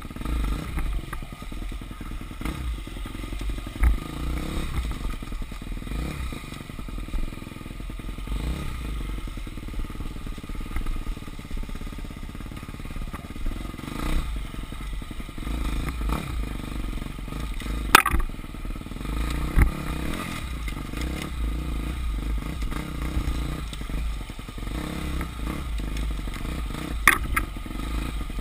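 Enduro dirt bike engine revving up and down through the gears as it rides a rough trail, with clatter and sharp knocks from the bike over bumps. The loudest knock comes about 18 seconds in, and there are others near 4 and 27 seconds.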